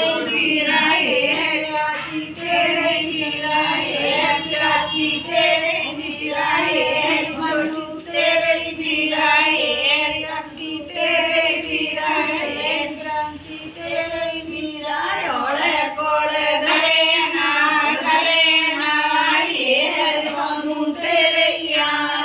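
A group of women singing a traditional Dev Uthani devotional folk song together, one continuous song with several voices.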